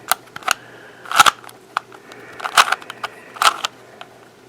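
Plastic 3x5 Rubik's Cube layers being turned by hand: short clicking, clacking rattles in irregular bursts, a few turns spread through the stretch.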